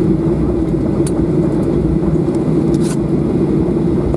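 Cabin noise inside a Boeing 737-800 rolling out on the runway after touchdown: a steady rumble from its CFM56 engines and wheels with a strong low hum, and two faint clicks about a second in and near three seconds.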